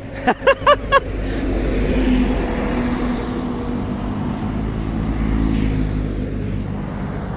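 A person's voice gives four quick syllables, then a large cargo truck passes on the highway, its engine droning and tyres rumbling, loudest about two seconds in and slowly fading.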